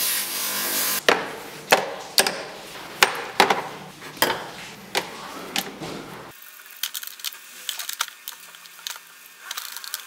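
A bench grinder's cloth buffing wheel polishing a metal part, cut off about a second in. A string of about nine sharp knocks follows over five seconds, each with a short ring. After that come only faint scattered clicks of small metal parts.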